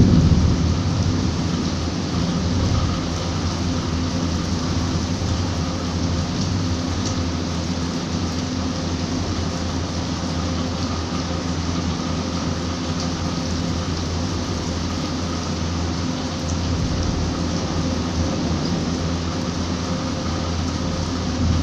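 Steady rain falling and spattering on a rooftop terrace, an even hiss, with a low steady hum underneath. A low rumble of thunder dies away in the first second.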